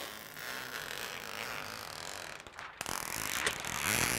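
Clear plastic protective film being peeled off a flat TV screen: a crackling rustle with a few sharp snaps, growing louder in the last second or so as the sheet comes away.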